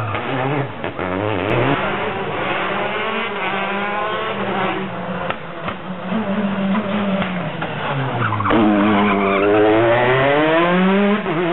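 Peugeot 208 rally car's engine at racing pace, its pitch dropping and climbing again and again as it brakes into hairpins and accelerates out through the gears. Near the end comes a long rising pull as it accelerates hard.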